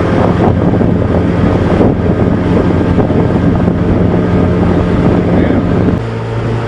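Johnson 40 hp two-stroke twin-cylinder outboard running steadily at cruising speed, pushing a pontoon boat, with wind buffeting the microphone. About six seconds in the engine note shifts and the sound gets a little quieter.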